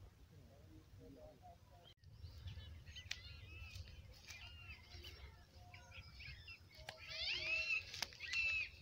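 Birds chirping and calling, faint at first, then many short rising and falling chirps from about two seconds in, growing louder and busier near the end. A low rumble and a few faint clicks lie underneath.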